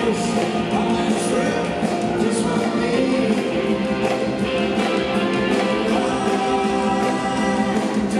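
Rock band playing live: electric guitar and electric bass with singing, as heard from the audience.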